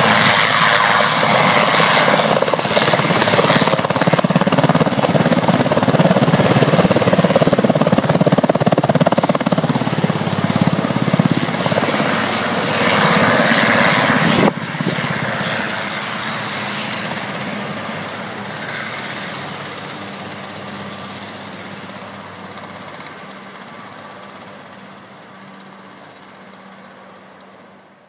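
Super Puma twin-turbine military helicopter, rotors and engines running loud as it hovers low after lift-off. About halfway through the sound drops suddenly, then fades away steadily.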